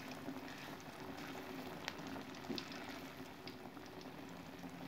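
White tofu frying in hot oil in a small wok: a steady bubbling sizzle with scattered small pops and crackles.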